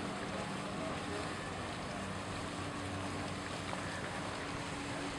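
Steady outdoor marina ambience: wind on the microphone, with a faint low machine hum underneath.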